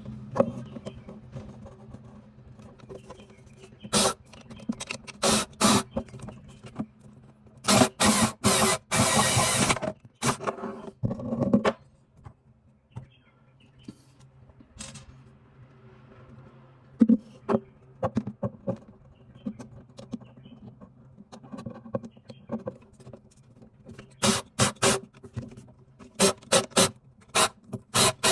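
A hand tool scraping wood in irregular short strokes, with a longer stretch of steady scraping about eight seconds in and a quick run of rapid strokes near the end.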